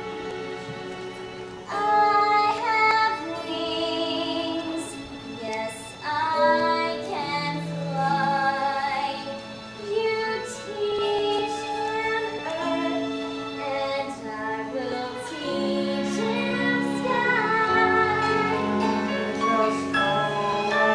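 A show tune from a stage musical: a female voice sings held notes with vibrato over instrumental accompaniment. The first two seconds are quieter and the singing grows louder after that.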